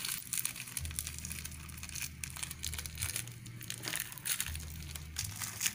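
Plastic cookie packet crinkling and crackling as it is squeezed and handled in the hand.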